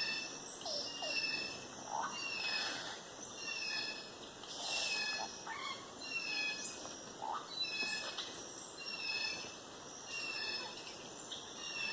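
Tropical forest animal chorus: many short, falling whistled calls repeating every half second or so, with occasional short rising calls lower in pitch, over a steady high tone.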